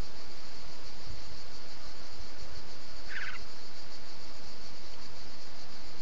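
A steady high-pitched drone, with one short, fast rattling bird call about three seconds in.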